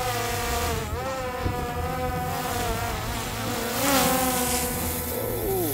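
Quadcopter drone's propellers whining overhead, a buzzing pitched tone that wavers up and down as it manoeuvres and drops in pitch near the end.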